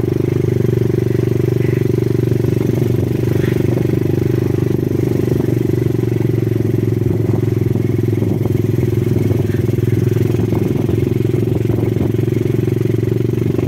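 Hyundai H-1 campervan driving, a steady low engine and road drone heard from inside, with faint light rattles.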